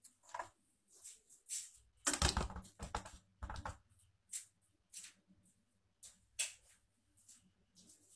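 Handling noise on a phone's microphone: irregular rustles and clicks as the phone is moved about against clothing, with a longer, louder rubbing scrape about two seconds in.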